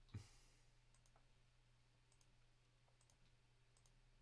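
Faint computer mouse clicks, several of them about a second apart, over near silence, with a soft low thump just after the start.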